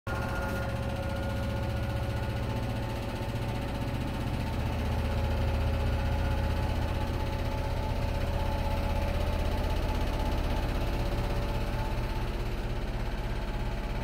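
Samsung front-load washing machine running its spin cycle: a steady low motor and drum hum with a fine rhythmic vibration and a faint whine. The machine runs smoothly without jumping now that its shipping bolts have been removed and it has been levelled.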